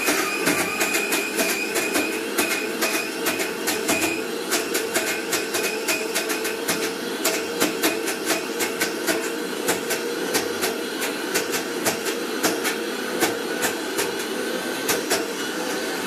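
Electric mixer grinder running, grinding soaked leftover rice into a paste: a steady motor whine with many sharp ticks of grains hitting the jar. It starts to stop right at the end.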